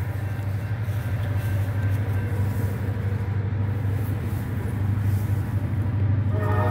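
Approaching CSX diesel locomotive rumbling steadily with a low engine hum, between blasts of its horn. The multi-note horn sounds again near the end.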